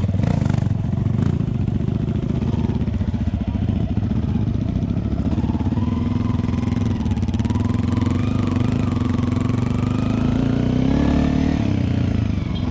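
Dirt bike engine running at low speed, heard close up from the bike, as it rolls slowly over dirt ground. The pitch is steady at first, then rises and falls slightly in the second half with small throttle changes.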